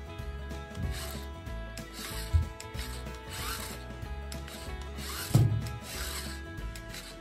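Transforming robot car toy's small motor and plastic gears rasping and clicking as it moves in robot form, with two louder knocks, one about two and a half and one about five and a half seconds in.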